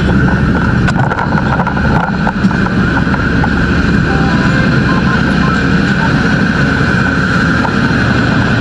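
Fire engine's engine running steadily and loudly, with a constant high whine over the low rumble.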